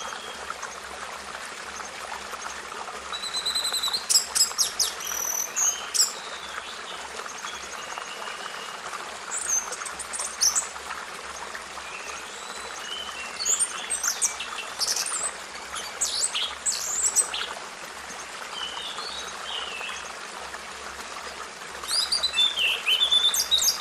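Birds singing in short bursts of high chirps and trills, loudest about four seconds in and near the end, over a steady rushing hiss.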